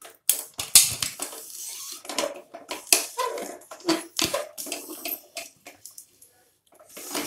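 Aluminium pressure cooker lid, its rubber gasket removed, being twisted and worked off the cooker body: an irregular series of metal scrapes, clicks and clanks.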